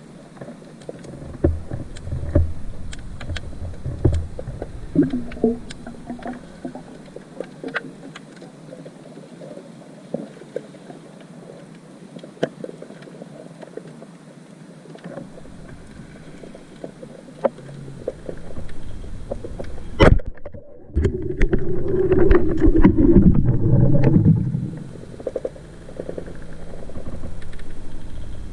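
Underwater sound picked up by a camera in its housing: scattered sharp clicks and crackles over a low muffled rumble, with one louder click about two thirds of the way in, followed by a few seconds of louder muffled rushing noise.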